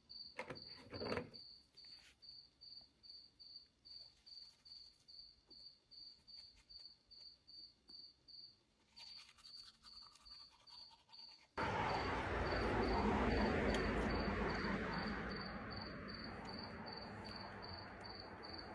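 Crickets chirping in an even high pulse, about two and a half chirps a second. About two-thirds of the way in a louder steady rushing noise starts suddenly and slowly fades.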